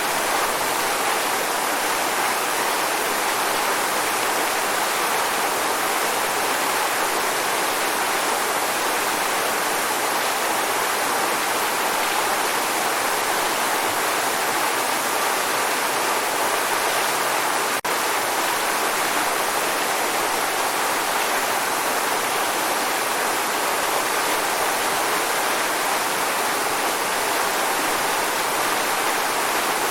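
Waterfall: a steady, unbroken rush of falling water, mostly hiss with little low rumble. There is a single faint click about two-thirds of the way through.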